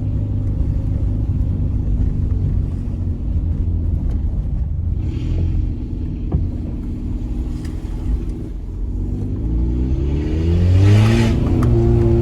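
Peugeot 206 1.4 8-valve four-cylinder engine on a straight-through exhaust with no catalytic converter, running with a steady low rumble while the car drives. About three quarters of the way in it accelerates, the engine note rising in pitch and growing loudest near the end.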